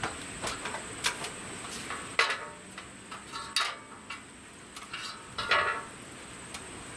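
Thin sheet-metal stovepipe parts clanking and clinking as they are handled and fitted together: several sharp metallic knocks with short ringing, the loudest about two, three and a half, and five and a half seconds in.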